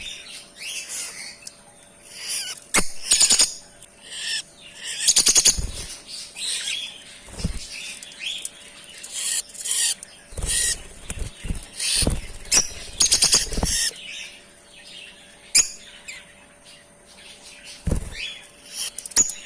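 Lovebirds chirping repeatedly in short high calls, with several loud bursts of wing flapping as birds flutter about the aviary cages.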